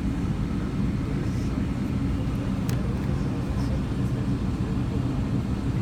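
Steady low rumble of cabin noise inside a Boeing 777-300ER on the ground, with one faint click about three seconds in.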